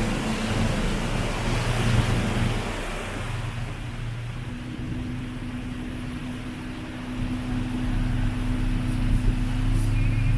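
Passenger boat's motor running with a steady low hum, under the rush of water and wind past the boat. The rushing eases after about three seconds and builds again near the end.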